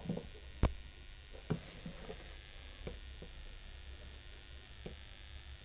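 Steady low electrical hum, with a few light clicks and knocks; the sharpest knock comes about half a second in.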